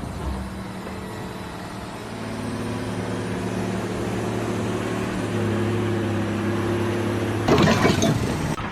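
A machine's engine running steadily, picking up a little about two seconds in and again about five seconds in. A loud, rattling burst of noise comes near the end.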